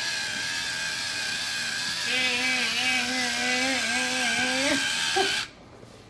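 A battery-powered toy monorail's electric motor running along its plastic track: a steady whir with a constant high whine that stops abruptly about five seconds in. A wavering pitched tone joins over it for a couple of seconds in the middle.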